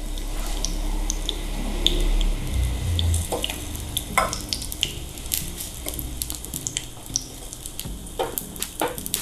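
Beaten egg with thin slices of pempek frying in shallow oil in a small pan, a steady sizzle with many small crackles, as for an omelette. A few sharper clicks of a fork against the pan.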